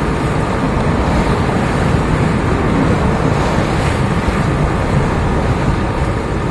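Wind buffeting the microphone and sea water rushing past a sailing yacht under way, a steady rushing noise with no break.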